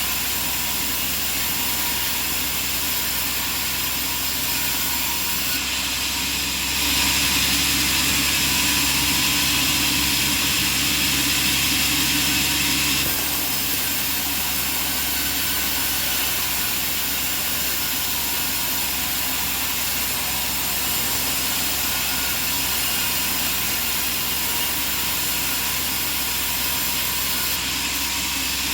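Band sawmill running with a steady machine drone and hiss. It grows louder and hissier for about six seconds, starting about a quarter of the way in.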